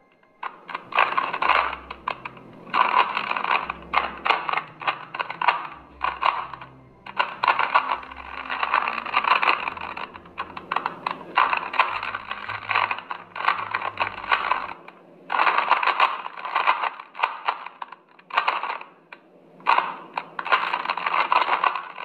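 A plastic 3x3 Rubik's Cube turned rapidly by hand during a timed solve: fast runs of clicking and clacking from the layers, broken by brief pauses every few seconds.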